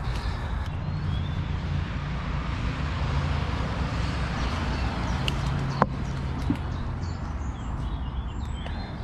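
Steady rumble of dual-carriageway traffic, with footsteps and rustling through undergrowth and a sharp click a little under six seconds in.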